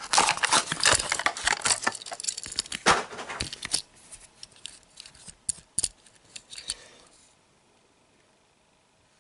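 Stiff plastic blister packaging crackling and clicking as a diecast toy car is worked out of it, dense for the first few seconds, then a few scattered clicks as the small metal car is handled. It stops about seven seconds in.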